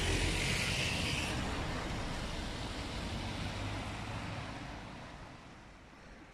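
A van driving past close by on a wet street, its tyres hissing on the wet road surface, the sound fading away over several seconds.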